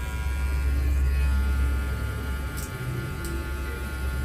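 Electric hair clipper running steadily as it cuts hair for a fade, a low steady buzz that grows louder about a second in.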